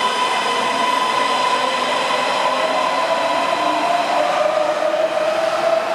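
Keisei AE-series Skyliner electric train moving along the platform: a steady electric whine over a high hiss. About four seconds in the whine slides down in pitch, as the train brakes into the platform.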